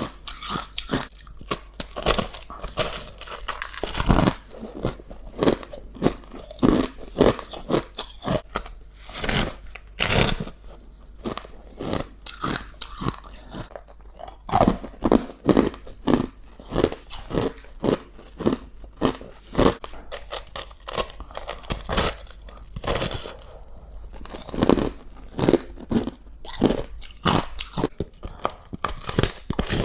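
Close-up crunching of frost ice being bitten and chewed, scraped from the top of a humidifier: a quick, irregular run of sharp crunches, several a second, with short pauses between mouthfuls.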